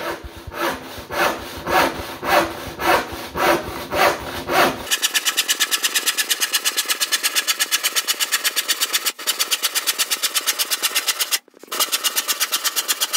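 Handsaw sawing through a laminate-topped chipboard worktop. Slow, uneven strokes for the first few seconds, then a fast even rhythm of about six strokes a second, broken off briefly near the end.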